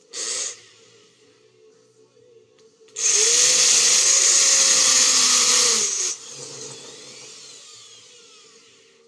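A power tool used in dowel making runs hard for about three seconds, its motor pitch rising at the start and dropping as the trigger is released, then spins down and fades. A brief burst of noise comes just at the start.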